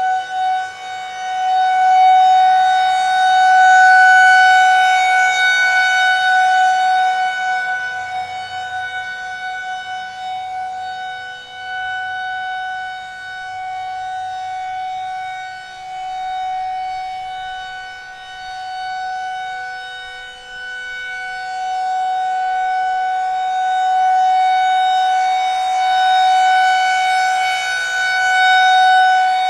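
Federal Signal 2001-SRNB rotating outdoor warning siren sounding its steady Alert tone on a monthly test. The pitch holds steady while the loudness swells and fades as the horn turns: loudest a few seconds in and again near the end, fainter in between.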